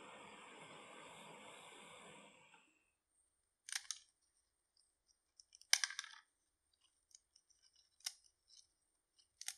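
Hot oil sizzling as a fried thattai is lifted out, fading away; then crisp fried rice-flour thattai crackers snapped apart by hand, four sharp cracks with small crumbling crackles between, a sign they are fried fully crisp.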